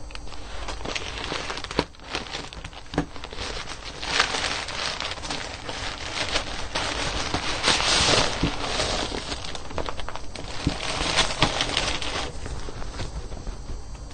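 Plastic mailer bag crinkling and rustling as it is cut open with scissors and handled, with scattered sharp clicks, loudest in the middle as a purple inner bag is pulled out of it.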